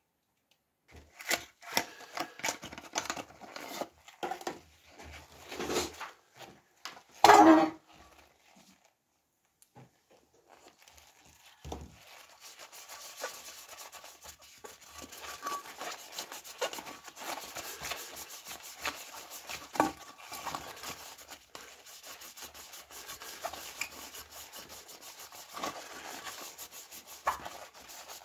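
Gloved fingers rubbing metal polish paste around the inside of a metal bowl: a steady, scratchy rubbing. Before it comes a string of handling clicks and knocks, the loudest a sharp knock about seven seconds in.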